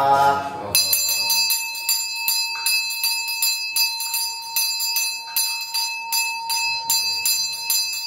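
A small brass hand bell (puja ghanta) rung continuously during a Hindu fire-ritual puja, at about four strokes a second, its ringing tones sustained throughout. It starts about a second in, just as a man's chanting ends.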